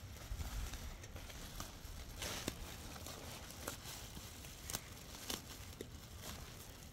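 Woven polypropylene sack rustling and crinkling as strands are pulled loose from it by hand, with scattered short crackles.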